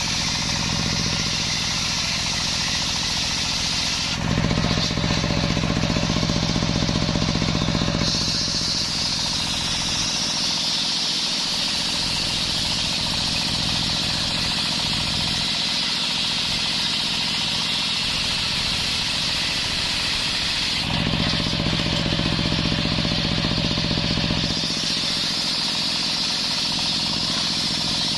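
Large table-mounted circular saw ripping coconut wood into planks: a steady high hiss from the blade in the cut over a low motor hum. About four seconds in and again near the three-quarter mark, the sound turns louder and deeper for a few seconds.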